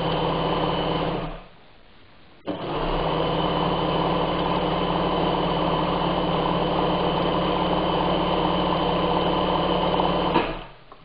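Bernina 817 sewing machine stitching at speed, its motor and needle mechanism running steadily while sewing an overlock stitch. It stops about a second in, starts again with a click after a short pause, then runs steadily for about eight seconds and stops near the end.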